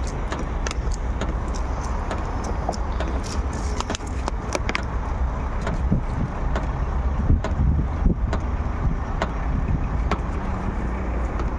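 Windshield wipers of a Volvo XC90 sweeping wet glass, set off automatically by the rain sensor as water runs down the windshield. This plays over a steady low rumble, with scattered sharp ticks.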